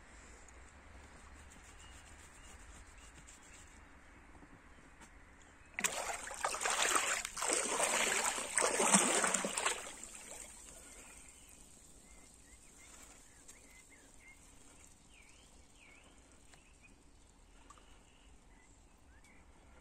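Water splashing and sloshing, loud for about four seconds starting some six seconds in, against faint outdoor ambience; a few faint bird chirps follow.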